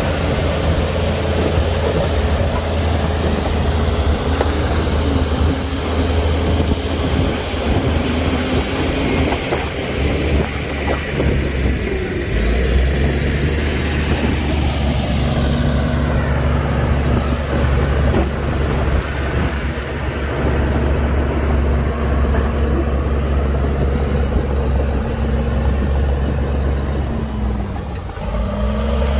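Heavy diesel engine of a LiuGong bulldozer working under load: a steady low drone with a faint high whine above it. The engine speed dips and recovers about twelve seconds in and again near the end.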